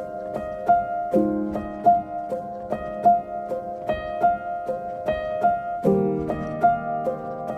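Instrumental background music: a repeating figure of short, piano-like notes, about two to three a second, over held low chords that change a little over a second in and again near the end.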